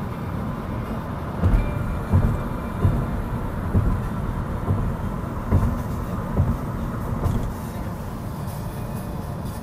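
Road noise inside a moving car: steady low tyre rumble with a run of about eight low thumps, a little under one a second, as the tyres cross the joints of a bridge deck. The thumps stop near the end, leaving only the rumble.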